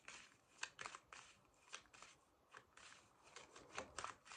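A deck of tarot cards being shuffled by hand: soft, irregular card snaps and rustles, a few a second.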